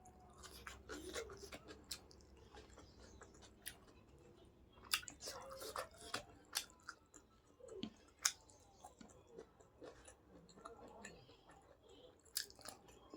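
Close-up chewing and eating sounds: soft, faint mouth noises with scattered sharp wet clicks and the odd crunch as food is bitten and chewed.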